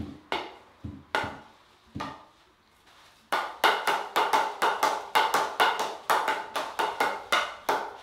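Princess SG9 carbon field hockey stick tapping a hard hockey ball while dribbling: a few scattered taps, then from about three seconds in a fast, even run of sharp knocks, about four a second, as the stick head pushes the ball quickly from side to side.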